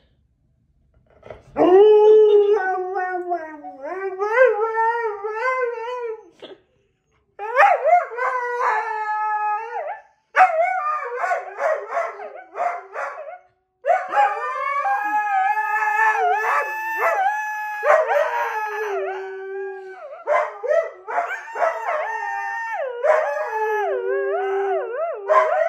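Two huskies howling: long, wavering howls that rise and fall in pitch, in several runs with short breaks. From about halfway through, two howls overlap as both dogs howl together.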